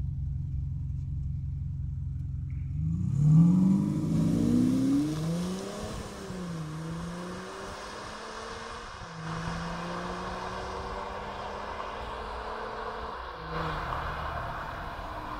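Audi SQ5 TDI diesel, exhaust in Dynamik mode, idling steadily, then pulling away hard: the engine note rises sharply, loudest about three seconds in, dropping back at each upshift. It then fades as the car drives off, with another rise near the end.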